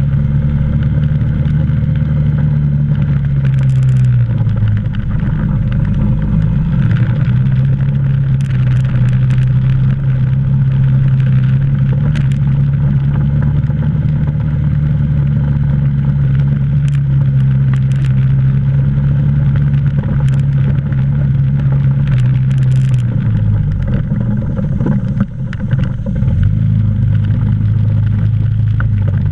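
ATV engine running as the quad is ridden over grassy trail, its note holding steady, then easing off briefly about four seconds in and again near the end before picking back up. Scattered sharp clicks and rattles sound along the way.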